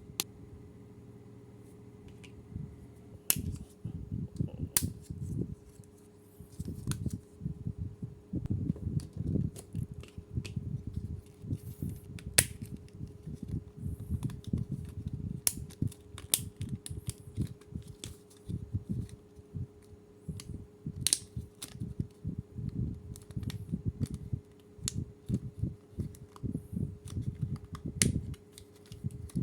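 Green army men toys and their packaging being handled and unpacked. The sound is irregular rustling with many sharp clicks and taps of plastic, starting about three seconds in.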